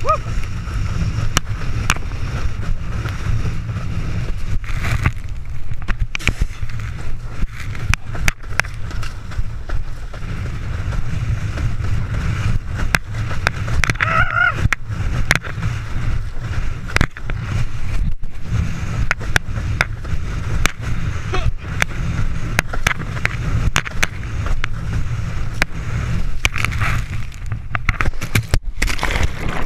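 Wind buffeting the microphone of a chest-mounted camera on a windsurfer planing at speed, a loud steady rumble over rushing water and spray, with many short knocks as the board runs over chop.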